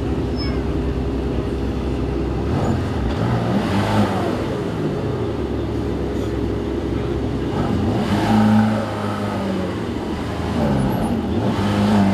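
Supercar engines accelerating hard, three times, each pulling up in pitch and dropping away, over a steady engine drone.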